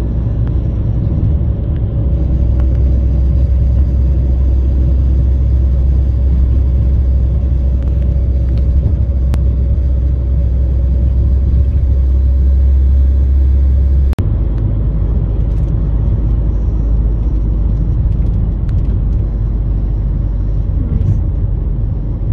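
Steady low rumble of road and engine noise inside a moving car's cabin, with a brief dropout about fourteen seconds in.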